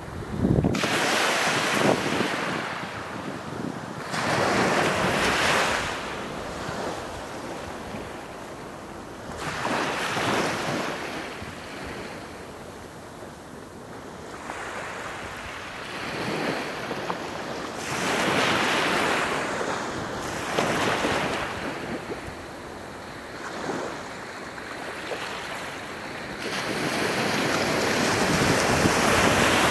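Small waves breaking and washing up a flat sandy beach. The surf swells and fades every few seconds and is loudest near the end.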